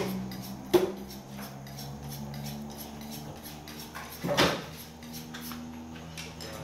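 A butcher handling a bone-in beef hindquarter cut on a stall table, with the meat and a large knife knocking against the table: two sharp knocks within the first second and a louder cluster of knocks about four seconds in. A steady low hum runs underneath.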